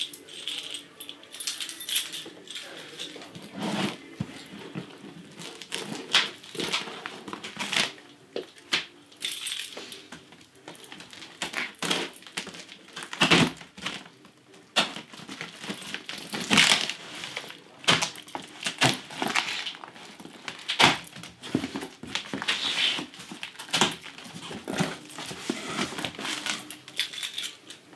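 Packing tape being slit with a key and torn off a cardboard box, then the cardboard flaps being pulled open: an irregular string of scratchy rips, scrapes and clicks.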